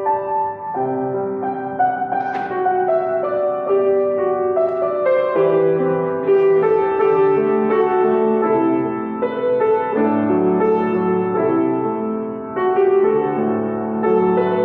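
Piano music: a steady flow of single notes and chords.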